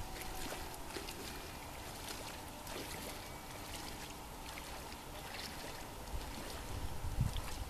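Beach ambience: a steady hiss of wind and gently lapping shallow water, with gusts buffeting the microphone just at the start and again about seven seconds in.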